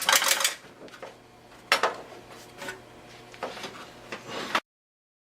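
Metal clattering and rattling from a steel computer tower case being handled, as a small dropped screw is hunted for inside it: a dense run of clatter, then a few separate bursts, cutting off suddenly near the end.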